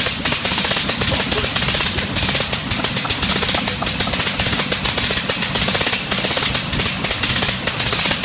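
Le Rhône rotary engine running after a hand-prop start, its cylinders firing as a rapid, uneven string of sharp exhaust pops at a steady speed.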